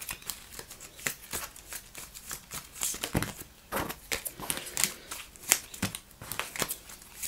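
A tarot deck being shuffled by hand: an irregular run of papery flicks and taps of cards against each other.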